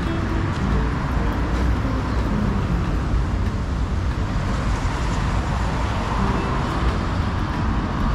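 Steady road traffic noise from passing vehicles on a city street.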